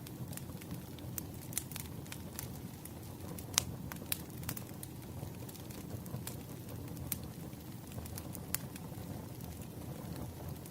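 Campfire crackling: a steady low rumble of burning wood with irregular sharp pops and snaps, the loudest pop about three and a half seconds in.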